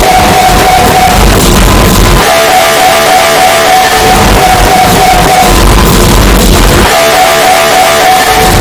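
MRI scanner gradient-coil noise, boosted until it distorts: a loud buzzing tone held for a couple of seconds, then a stretch of low rumble, in a steadily repeating cycle.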